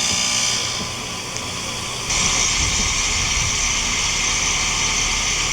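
Outdoor unit of a 2020 ICP two-ton heat pump finishing a defrost cycle: a steady hiss and rush of air and steam. About two seconds in the sound steps up into a louder, steady whoosh with a low rumble as the unit comes out of defrost.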